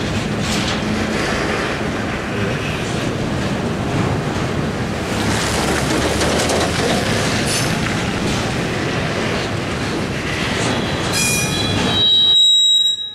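Double-stack intermodal freight cars rolling past at close range, a steady loud rumble of wheels on rail. High, thin wheel squeal rises near the end as the train takes the crossover.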